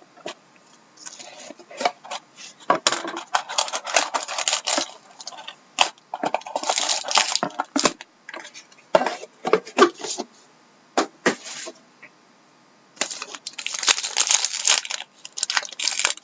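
A sealed box of trading cards being unwrapped and opened by hand: plastic wrap crinkling and tearing, with cardboard and card handling, in irregular bursts with short pauses.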